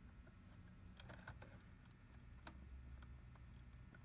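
Near silence with a few faint clicks and taps, from fingers working at the TiVo Roamio's metal CableCARD cage to pull its connector straight up.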